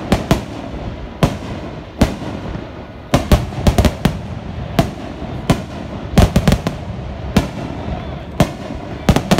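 Aerial fireworks going off: a rapid, irregular run of sharp bangs, several coming in quick clusters.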